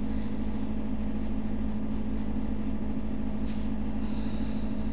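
Graphite pencil scratching on paper in short strokes, faint beneath a steady low hum.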